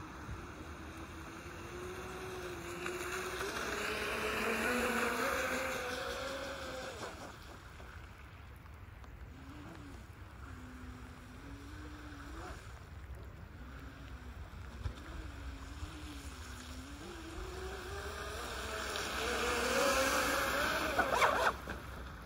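Radio-controlled jet boat's brushless electric motors (4300kV inrunners) driving twin water-jet drives, whining with a pitch that rises and falls with the throttle. It swells twice as the boat runs hard, and near the end a few sharp ticks stand out.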